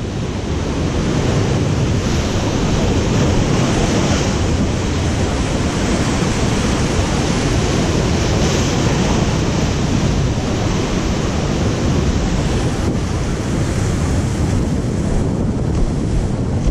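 Heavy surf breaking over rocks and washing around them, a dense, steady rush, with wind rumbling on the microphone.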